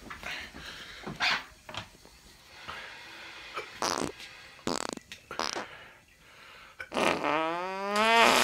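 A series of farts: several short ones spread over the first few seconds, then a long drawn-out one near the end whose pitch rises steadily.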